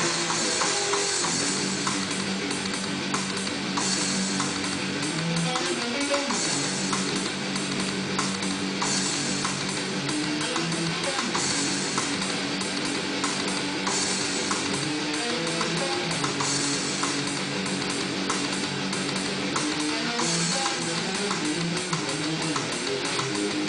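Music with guitar and a drum kit keeping a steady beat.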